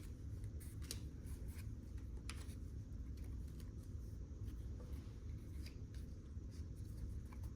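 Football trading cards being slid and flipped through by hand, a scatter of faint light clicks and rustles over a low steady room hum.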